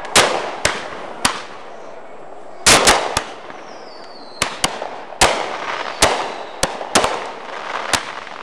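Fireworks going off: a rapid, irregular series of about a dozen sharp bangs, bunched closely around three seconds in, each trailing off in a short echo.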